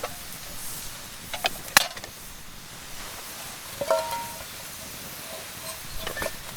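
Scattered sharp clicks and knocks of camp cooking gear being handled, five or so over several seconds, the loudest a little under two seconds in.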